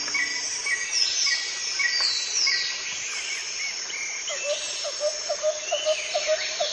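Birds chirping over a steady hiss of outdoor ambience, with short repeated calls and quick falling whistles. From about four seconds in, a lower note repeats rapidly, several times a second.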